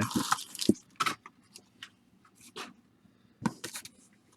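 Plastic and foil baseball card pack wrappers crinkling and rustling as packs are handled and torn open. A short burst of rustling comes first, followed by scattered crackles and taps.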